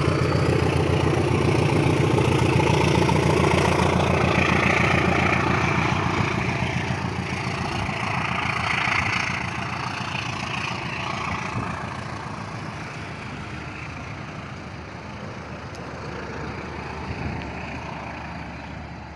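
A heavy vehicle's engine running close by with a deep, pulsing rumble, then fading gradually as it moves away.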